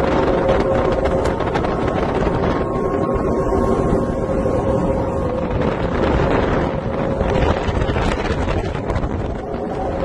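A hydrofoil motorboat under way: a steady engine and drive drone with a humming tone, and wind rushing over the microphone.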